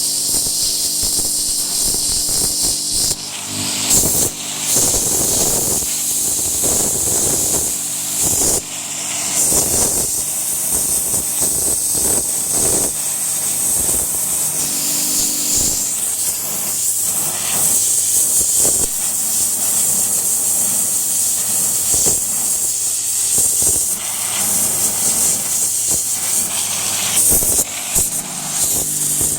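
A Landa 3000 psi pressure washer running, its high-pressure water jet hissing loudly as it cuts into a 2x2 piece of wood, over a steady machine hum. The hiss swells and dips now and then as the jet moves or briefly stops.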